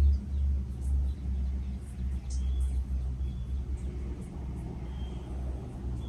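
60-inch Fanimation Enigma ceiling fan running at speed, its moving air heard as a low, uneven rumble that swells and dips.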